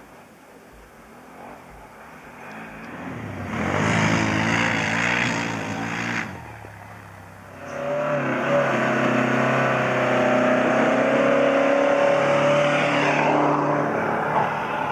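Off-road vehicle engines revving hard. First a quad bike's engine builds as it comes over a rise and cuts off a little after halfway. From about 8 s a four-by-four's engine runs loud at high revs.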